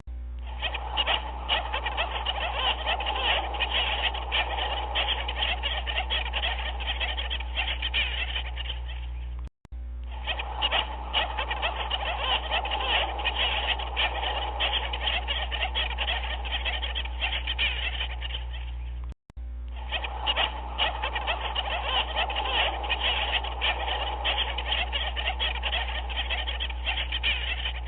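A dense chorus of many animals calling over one another, with a steady low hum beneath. The same stretch of audio repeats as a loop, cutting out briefly and restarting about every ten seconds.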